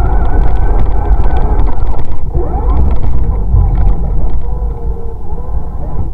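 Off-road RC car's motor and gears whining, rising and falling in pitch with the throttle, over heavy rumble from the wheels on rough ground, picked up by a camera mounted on the car.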